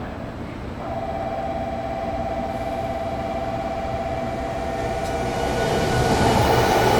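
813-series electric multiple unit pulling away from a station: a steady electric whine from the traction equipment sets in about a second in, then the train's running noise grows louder as it starts to gather speed.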